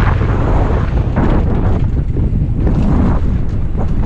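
Wind buffeting a helmet-mounted camera's microphone as a downhill mountain bike runs fast down a dirt trail, with tyre noise on the dirt surging and fading.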